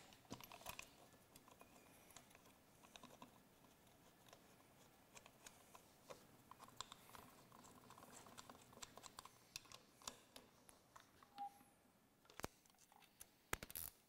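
Faint, scattered small clicks and taps of a mechanical fuel pump and its bolts being handled and fitted against the mounting plate on the engine block, with a few sharper clicks near the end.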